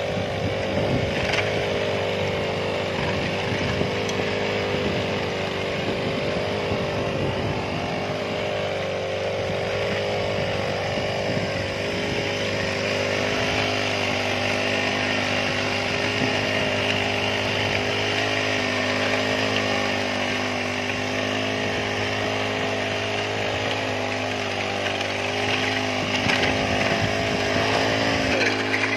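Honda four-stroke brush cutter engine running steadily under load, driving a weeder attachment whose tines churn through the soil.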